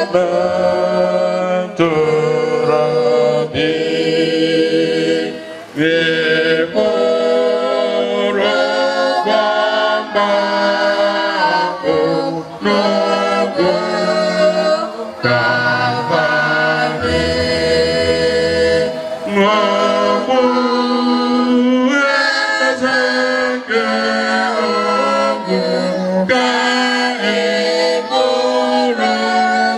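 A choir singing unaccompanied, several voices holding long notes together.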